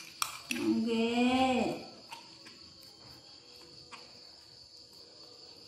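Steady high chirring of crickets, with a wordless voice holding one note for about a second and a half near the start, and a few faint clicks of a metal spoon against a cup.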